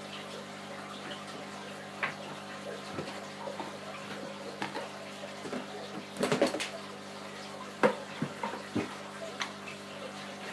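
Aquarium water trickling steadily over a low electrical hum, broken by scattered knocks and clatter of someone handling things at the tank: a loud burst of knocks about six seconds in and a sharp knock a little before eight seconds.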